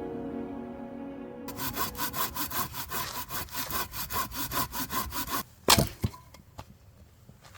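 Music fading out, then a hand saw cutting through wood in quick, even back-and-forth strokes, about five a second, for about four seconds. One sharp crack, the loudest sound, follows just after the sawing stops.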